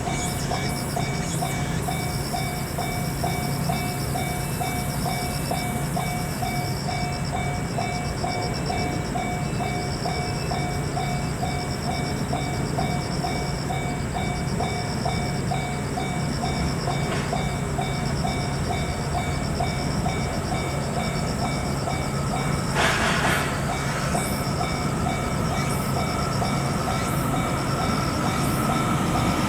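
Japanese railroad crossing warning bell ringing in a steady repeating kan-kan pattern, with a train's noise growing louder near the end.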